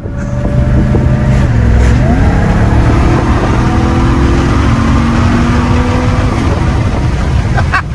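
Ram TRX's supercharged 6.2-litre Hemi V8, breathing through an S&B aftermarket air intake, pulling hard under acceleration as heard from inside the cabin. The engine pitch dips and climbs again about two seconds in, then keeps rising.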